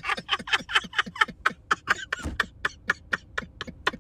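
A man laughing hard in a quick run of short breathy pulses, about six a second, that grow fainter toward the end.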